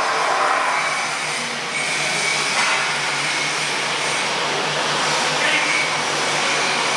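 Steady, loud machine noise: an even hiss-like rush with a low hum under it.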